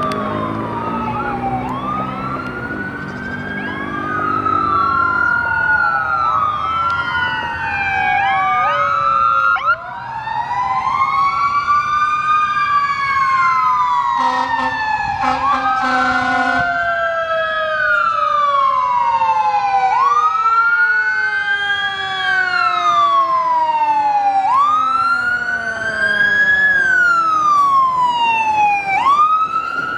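A 2009 Ferrara Igniter ladder truck responding with its sirens on. An electronic siren wails about every two seconds. A deeper siren winds up about ten seconds in and then slowly winds down. The truck's air horn sounds in a long blast near the middle.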